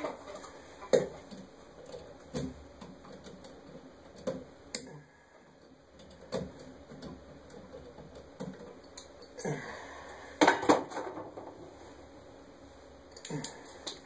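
Scattered small clicks, taps and rattles of hand work on wiring in a metal ceiling electrical box: wires and wire nuts being handled while a loose connection is tracked down. There is a louder pair of knocks about ten seconds in.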